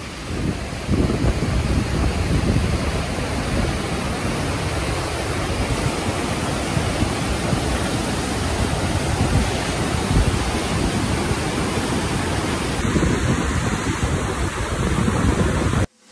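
The steady rushing roar of the Niagara River's whitewater rapids: a dense, even noise with no breaks. It cuts off abruptly at the very end.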